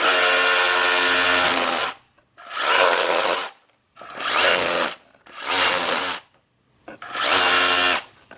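Ridgid R86712B brushless SDS rotary hammer in chisel mode, chipping out mortar from a crack in a stone retaining wall. It runs in five short bursts of one to two seconds with brief pauses between, the first the longest.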